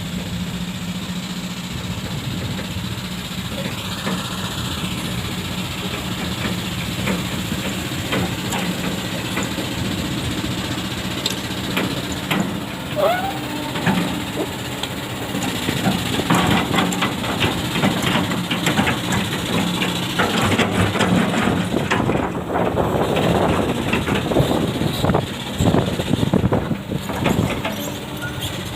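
Kobelco SK200 hydraulic excavator's diesel engine running steadily while it digs fine sand, with clattering and scraping that grow denser and louder about halfway through.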